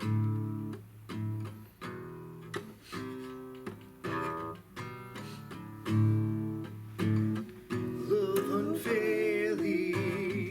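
Worship song on acoustic guitar: strummed chords, with a voice coming in singing about eight seconds in.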